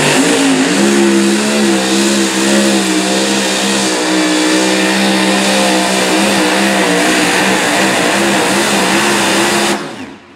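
Supercharged engine of a super modified 2WD pulling truck running at full throttle under the load of the weight sled. Its pitch wobbles up and down about three times a second as the rear tyres bite and spin. The engine cuts off sharply near the end as the pull finishes.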